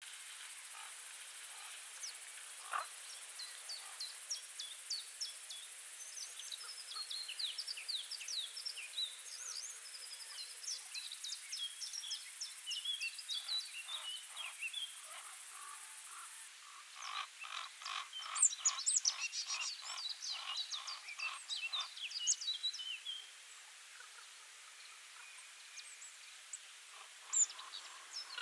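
Songbirds chirping and singing, many short high notes and trills overlapping. Between about 17 and 22 seconds in, a fast run of evenly repeated calls stands out, and a faint steady high hiss cuts off about halfway through.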